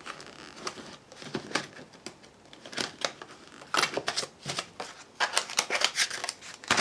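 Thin metal cutting dies being put away in a clear plastic storage pocket: irregular light clicks and taps with short plastic rustles, in scattered clusters.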